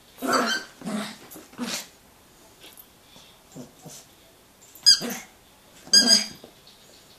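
A papillon dog's short growls and barks while it plays with a rubber toy: three quick bursts at the start, a lull with faint sounds, then two sharper yaps near the end.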